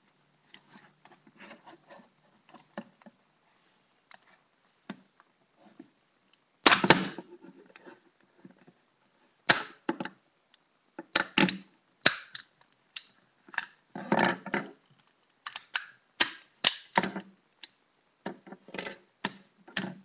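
A plastic TV remote control being smashed: a series of hard, sharp blows in quick clusters. A few faint clicks come first, and the loud strikes begin about seven seconds in.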